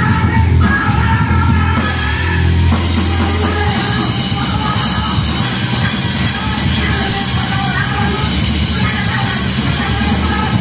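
Live hardcore punk band playing: distorted guitars, bass and drums with shouted vocals. The cymbals come in brighter about two to three seconds in.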